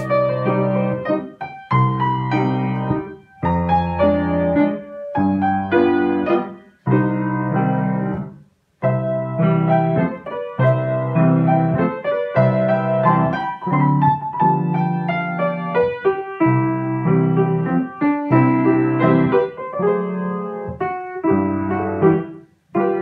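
Piano played by a child: chords with a melody over them, stopping briefly a few times.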